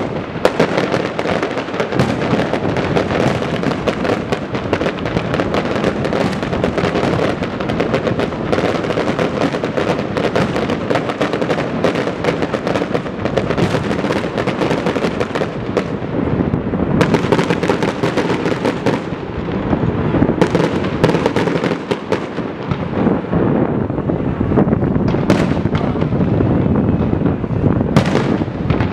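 Aerial fireworks display: a dense, unbroken run of bangs and crackles as shells burst one after another, with several louder single booms in the second half.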